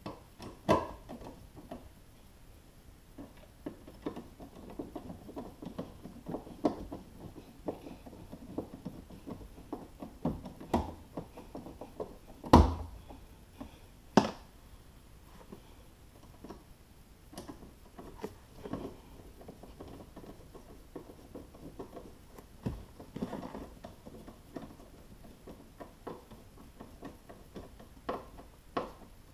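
Hand tools scraping and tapping on a car's bare metal floor and seat-mount plate: a run of scraping with scattered clicks, then two sharp knocks about 12 and 14 seconds in, followed by more irregular clicks and taps.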